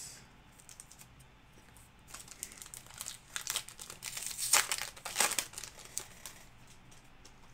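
Wrapper of a 2020 Panini Chronicles football card pack crinkling as it is handled and opened. It starts about two seconds in, is loudest just past the middle, and dies away near the end.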